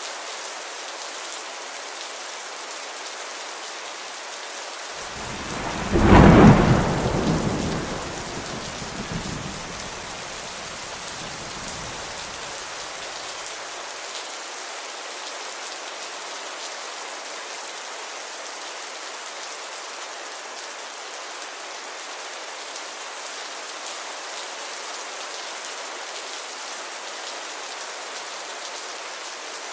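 Steady rain falling. About five seconds in, a clap of thunder breaks in sharply, is the loudest sound here, and rumbles away over the next several seconds.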